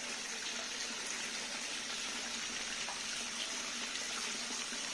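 Water trickling steadily from a small stone cascade into a garden pond.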